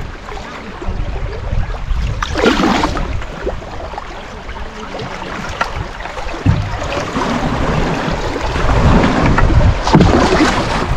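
Creek water swirling and splashing along a canoe hull as it moves with the current, getting louder in the second half, with wind rumbling on the microphone.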